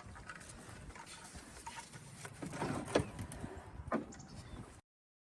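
Faint clicks, scrapes and knocks of hands and tools working at a car part, with a few sharper knocks about two and a half to three seconds in and again at four seconds. The sound cuts off to dead silence near the end.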